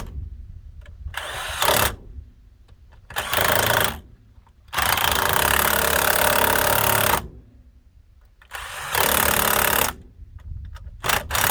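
Impact wrench run in five bursts to spin lug nuts onto a wheel. The middle burst is the longest, about two and a half seconds, with short pauses between the bursts.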